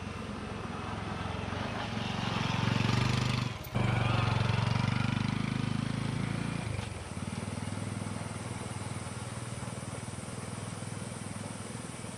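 Honda CT125 Hunter Cub's single-cylinder engine running as the motorcycle rides up and grows louder. A sudden break comes about three and a half seconds in, then it rides away and settles to a quieter, steady running.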